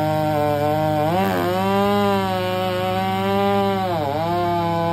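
Stihl MS661 two-stroke chainsaw with a 36-inch bar running at high revs while cutting through a large tree trunk. Its pitch dips briefly twice under the load of the cut, about a second in and near the end.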